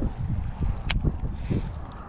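Wind buffeting the microphone of a body-mounted camera, a low uneven rumble, with handling knocks as the hands work a baitcasting rod and reel. One sharp click about a second in.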